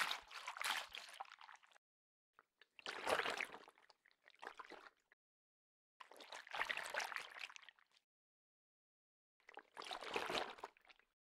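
Water splash sound effect: splashing water in four short bursts of a second or two each, about every three and a half seconds, with dead silence between them.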